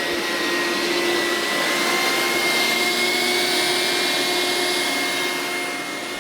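Hoover SteamVac carpet cleaner running steadily, with its motor whine edging slightly up in pitch. The machine is working properly with a replacement clean-water tank fitted.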